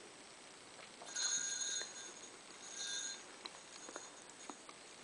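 Small Christmas jingle bells hanging on a pet stroller jingling as a cat paws at them, in two short bursts a little over a second apart, followed by a few light taps.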